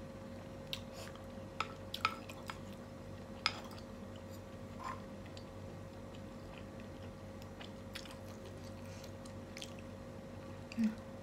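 A person chewing meatballs, with scattered small clicks and taps from a metal spoon and fork working in the pan, over a faint steady hum. A short dull thump comes near the end.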